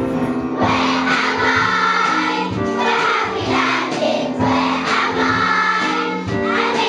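A group of young children singing a song together in unison, over steady instrumental accompaniment.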